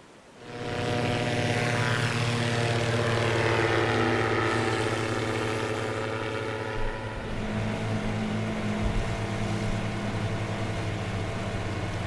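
Small light plane's propeller engine opening up for takeoff, then a steady drone as it climbs away. The sound swells quickly about half a second in and eases slightly toward the end.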